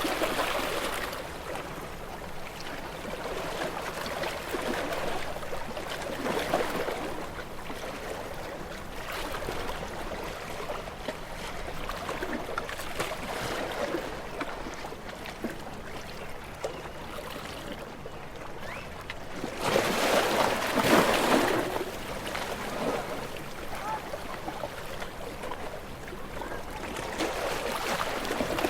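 Small waves washing onto a shore, each swelling and falling away over a few seconds; the largest breaks about two-thirds of the way through.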